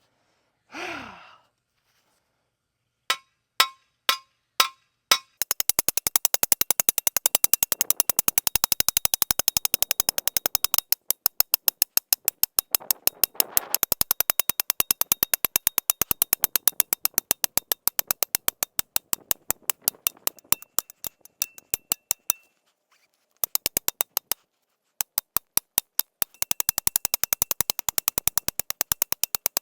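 Steel T-post being driven into hard ground with a post driver: a few separate sharp metal strikes, then a long fast run of strikes several a second, broken by two short pauses near the end.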